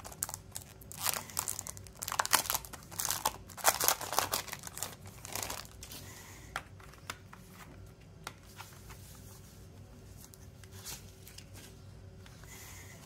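Clear plastic shrink-wrap being torn and peeled off a CD jewel case: a run of dense crinkling and crackling lasting about five seconds, then a few faint clicks of handling.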